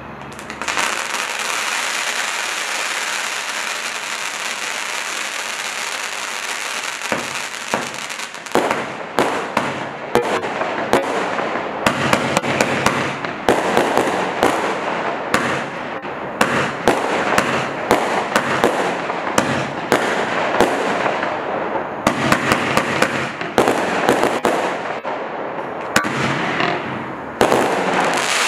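Standard Fireworks Blue Nebula firework cake firing: a steady hiss for the first seven or eight seconds, then a rapid run of sharp shots with crackling bursts, broken by a few short gaps.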